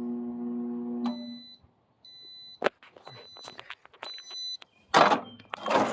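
Microwave oven's running hum stops with a click about a second in, followed by its end-of-cycle beeps, several high beeps about a second apart. Sharp clicks and two loud clattering handling noises come near the end, as the oven door is opened.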